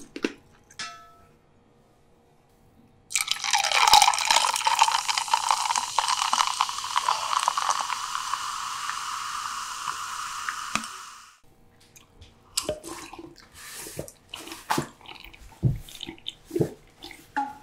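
Cola poured from a large plastic bottle into a tall glass: a steady splashing pour with fizz that starts about three seconds in and stops suddenly some eight seconds later. Then scattered small clicks and gulps as the fizzy cola is drunk.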